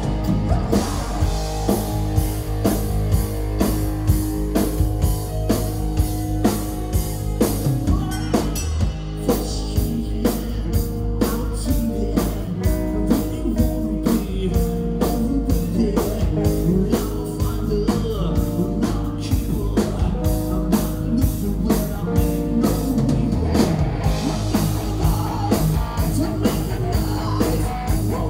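Live 80s-style hard rock band playing a song: distorted electric guitars, bass and a driving drum kit beat, with a male lead singer.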